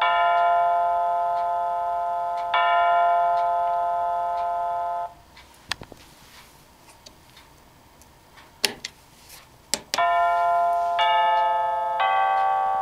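Electronic bell-like chime from the Adler 20160 quartz wall clock's melody speaker. It plays two long held notes, the second cut off suddenly about five seconds in. After a pause broken by a few sharp clicks, a quicker run of notes about a second apart begins.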